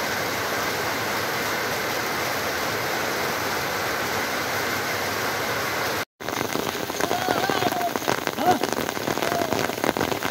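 Steady rain falling and streaming off a roof edge. About six seconds in, after a brief cut-out, the rain turns more uneven, with sharper drop hits.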